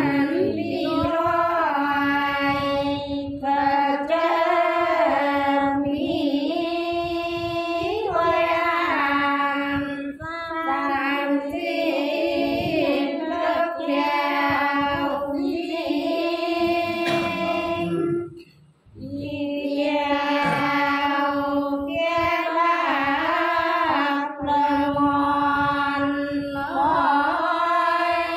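Elderly Sán Dìu women singing soọng cô, the Sán Dìu folk song, in long, wavering held notes, with a short pause for breath about two-thirds of the way through.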